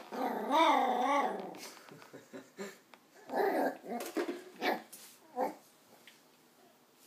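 Nine-week-old West Highland white terrier puppy barking and growling: a drawn-out, wavering growl-bark about a second and a half long, then a few short yaps between about three and five and a half seconds in.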